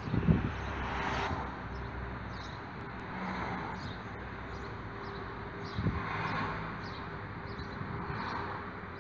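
Outdoor background noise with a faint steady hum, swells of distant traffic and small high chirps like birds. There is a short bump right at the start.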